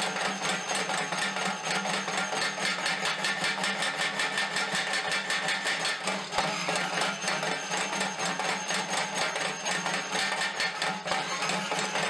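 Small homemade anvil-mounted power hammer (a Hardy Hammer) striking rapidly and evenly, its dies hammering a red-hot steel bar as tong jaws are forged.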